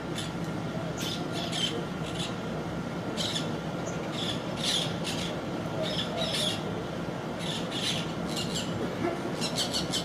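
Green parakeets giving short, harsh screeching calls, singly and in quick clusters, over a steady low background hum.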